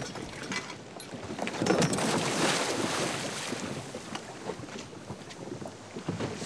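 A diver in full deep-diving gear going over the side of an inflatable boat into the sea: a splash and rush of water about two seconds in, then water churning and bubbling beside the hull.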